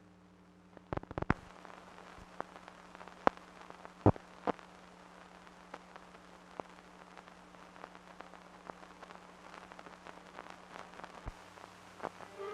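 Old optical film soundtrack running with no programme on it: a faint hiss with scattered crackles and pops, a cluster about a second in and the loudest near four seconds, over a steady low hum.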